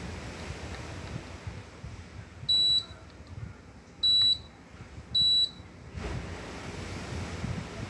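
Midea mini-split air conditioner indoor unit beeping three times, short high single-tone beeps about a second and a half apart, the unit acknowledging remote-control commands. Under the beeps runs the steady airflow hiss of the unit's blower, which drops after the first beep and comes back about six seconds in.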